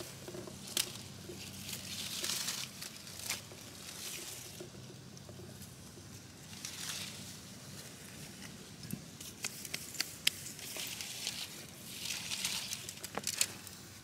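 Rustling and crinkling as a wire-mesh dome trap is handled and set in the leaves and sand, with scattered sharp clicks of the wire and sticks.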